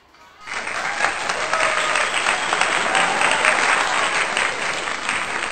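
Applause, a dense clatter of many hands clapping, that starts abruptly about half a second in, over background music.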